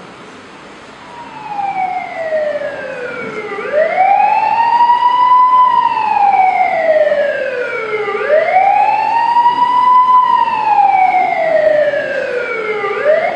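Wailing emergency-vehicle siren, its pitch sweeping slowly up and down about every four and a half seconds. It fades in over the first few seconds and then holds loud.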